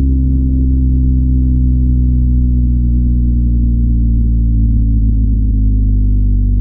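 BMW R1250 GS's boxer twin, on its stock exhaust, running steadily under way, its note easing slightly lower in pitch.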